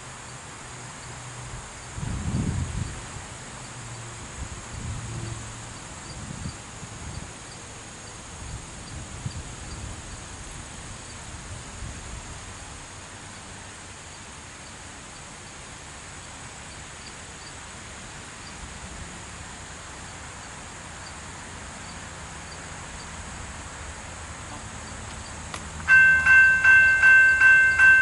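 Railroad crossing bell starting up near the end, about three strokes a second, warning that a train is approaching. Before that there is only low outdoor background, with a steady high insect drone and a few faint low rumbles.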